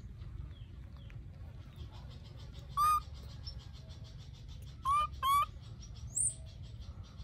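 Baby long-tailed macaque giving three short, loud, rising coo calls, clear squeaky tones, the last two close together. A fast, even ticking runs in the background.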